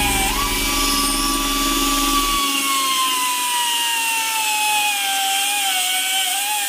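Pneumatic cut-off tool with a small abrasive disc cutting a stainless-steel exhaust tip, giving a steady high whine. The pitch dips and recovers just after the start, then sinks slowly under the load of the cut.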